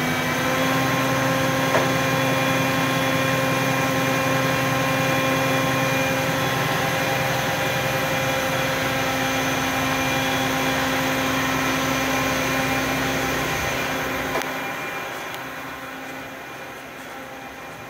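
Crane's engine running steadily with a constant whine, easing off and quieter about fifteen seconds in.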